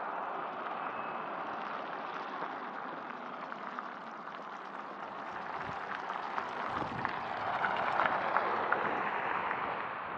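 A Mercedes SUV driving past close by on an asphalt street. Its tyre and engine noise swells about seven seconds in and fades near the end, over a steady outdoor hiss.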